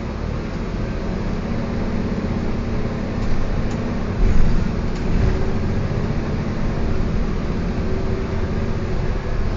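Interior sound of a Gillig Advantage compressed-natural-gas transit bus under way: steady engine and drivetrain hum with road noise, and a faint pitched whine that drifts slowly higher. There is a brief thump about four seconds in.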